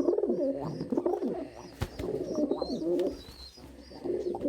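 Several domestic pigeons cooing at once, their low coos overlapping, with a single sharp knock about two seconds in.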